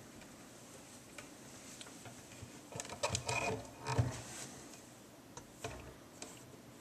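Faint handling noises as a plastic cabinet safety band is stretched and looped over a wooden cabinet door's knob: a short cluster of small clicks and rustles about three seconds in, one sharper click about a second later, then a few light ticks.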